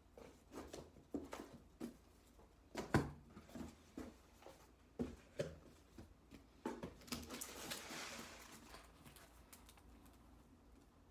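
Hands unpacking a parcel: scattered light taps and knocks of items and packaging being handled, one sharper knock about three seconds in, then a stretch of rustling packaging near the end.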